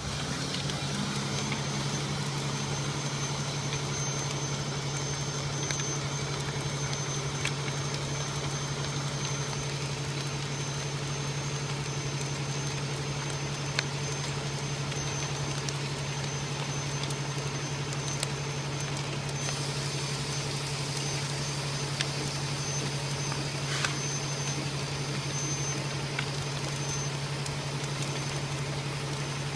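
A truck's diesel engine idling steadily with a constant low hum, and a few sharp cracks from the burning log load.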